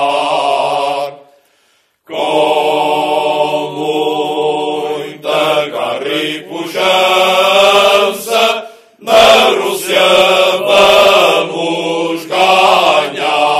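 Male choir singing cante alentejano unaccompanied, several voices together in slow, long-held notes. The singing stops for under a second about a second in and dips briefly again near nine seconds.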